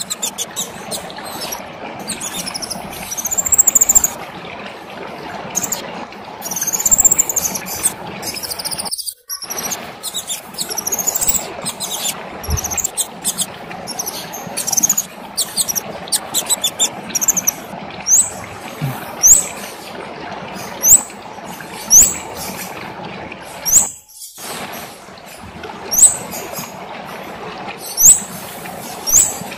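Kemade songbird singing in rapid, very high-pitched phrases of arching notes. From about two-thirds of the way in, it switches to sharp upward-sweeping calls, one about every second, over a steady background hiss. The sound cuts out briefly twice.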